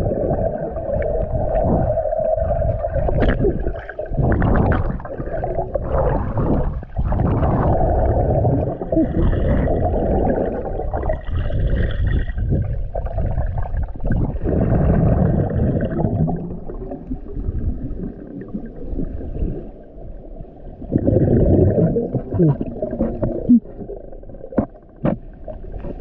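Muffled underwater noise through a submerged camera: low rushing and gurgling of water and air bubbles that surges and ebbs as the swimmer moves, with a few sharp clicks.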